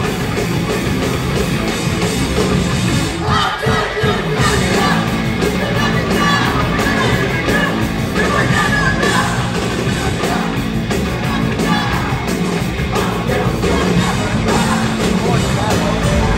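Live hardcore band playing loud, with yelled vocals over distorted guitars and drums and some crowd noise.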